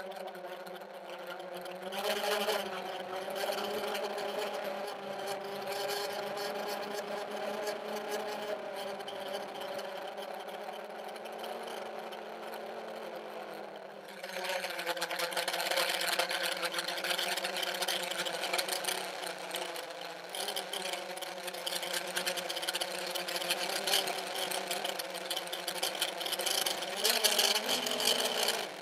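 Armattan CNC 355 quadcopter's electric motors and propellers whining, recorded from the camera on the quad, the pitch wavering as the throttle changes, with a rushing of air over it. It gets louder about two seconds in and again about fourteen seconds in, as the throttle is pushed up for harder flying.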